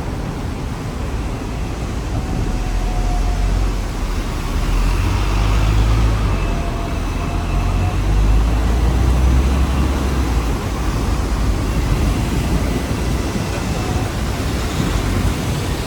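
Hong Kong double-decker tram running along the street, a low rumble that swells for several seconds in the middle, over steady road-traffic noise.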